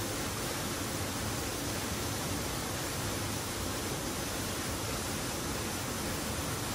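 Steady rushing of river water, an even noise with no strokes or breaks.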